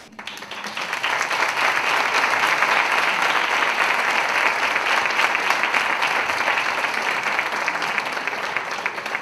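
Audience applauding, building up over the first second and tapering off near the end.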